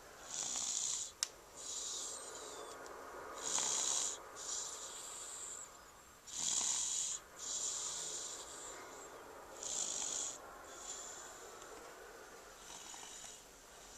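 A five-and-a-half-month-old baby girl snoring in her sleep: hissy breaths in pairs about every three seconds, a shorter louder one followed by a longer softer one, four or five times over. A single sharp click sounds about a second in.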